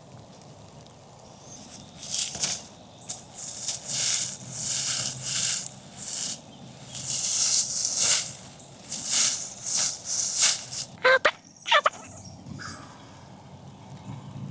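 Wild turkey gobbling, a run of loud bursts over several seconds, followed by two sharp rising notes.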